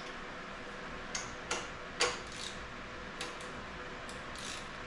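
Light metallic clicks and clinks of hand tools and fasteners on a motorcycle's titanium exhaust as it is unbolted, about half a dozen at irregular intervals.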